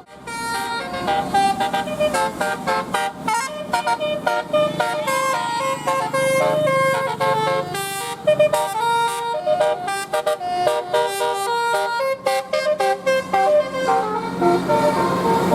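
Bus 'telolet' horn, a multi-tone musical air horn, playing a fast tune of short notes that step up and down in pitch one after another.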